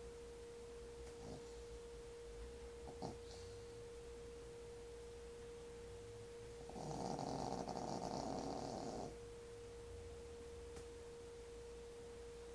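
A sleeping pet snoring: one long, loud snore about seven seconds in, after fainter short breaths earlier. A steady high hum runs underneath.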